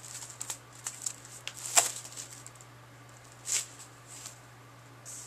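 Hands handling a CD album's cardboard case and photobook: a few light rustles and taps of paper and card, the sharpest about two seconds in, another about three and a half seconds in, over a faint steady low hum.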